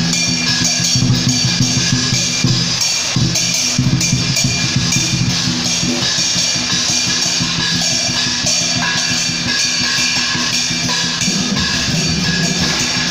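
Chinese funeral procession music playing continuously: drums and cymbals beating under several steady held tones.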